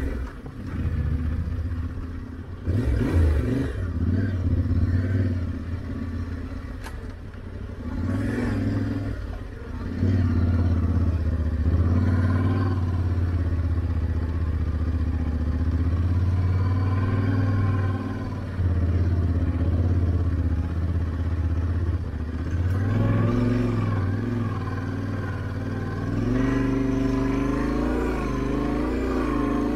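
Yamaha Ténéré 700's parallel-twin engine running under way, its pitch rising and falling as the throttle opens and closes, with a short rattling burst about three seconds in.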